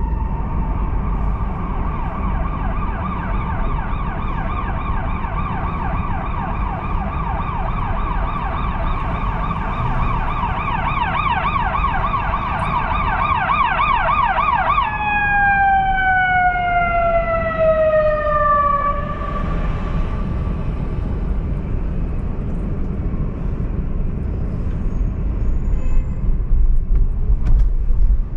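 Emergency vehicle siren: a short falling wail switches to a fast yelp, rising and falling several times a second, then about halfway through drops into one long falling wail that dies away. A steady low traffic rumble runs underneath.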